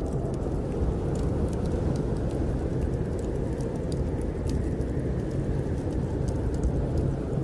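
Steady low rushing of snowstorm wind, with scattered small sharp crackles of a wood fire burning in a fireplace.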